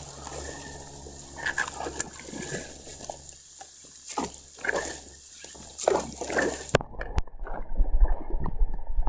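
Storm drain gurgling and slurping as puddle water pours into it, in irregular glugs. About seven seconds in the sound turns dull and muffled, with low thumps.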